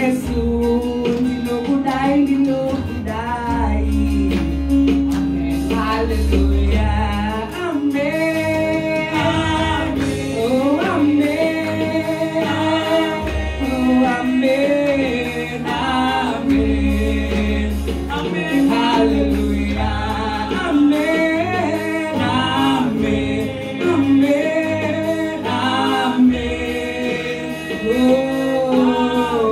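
Two women singing a gospel song into microphones, over a backing of sustained low bass notes.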